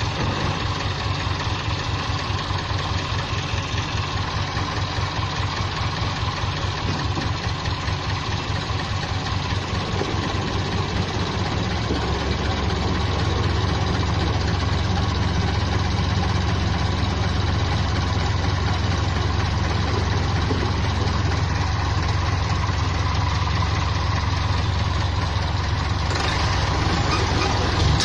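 Farm tractor's diesel engine running under load as it tries to pull a loaded truck out of the mud. About twelve seconds in it grows louder and deeper as it is worked harder.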